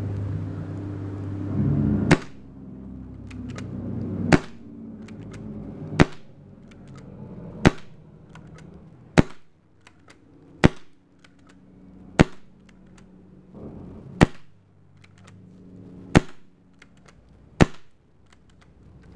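Center-feed Desert Duck–style paintball pistol firing ten single shots, one every one and a half to two seconds, with faint clicks between the shots. A low hum fades out within the first two seconds.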